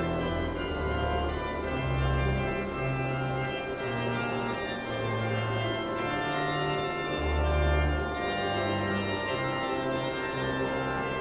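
Background music: held organ-like chords over a slow bass line that changes note about every second.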